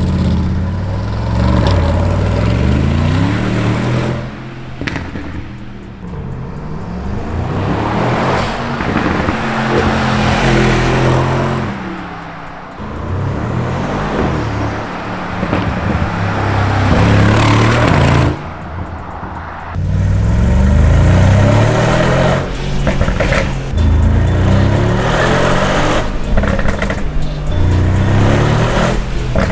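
Mercedes-AMG G63's twin-turbo V8 revved again and again, its pitch climbing and falling with short pauses between revs. Soft exhaust crackles come from a Stage 1 ECU tune's Brabus-style crackle map.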